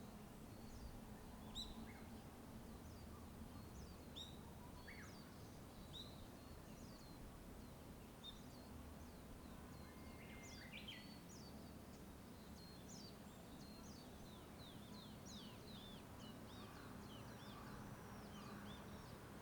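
Several small birds calling in short chirps, thickening into a quick run of rapid chirps in the second half. Beneath them runs a faint steady low rumble of traffic noise.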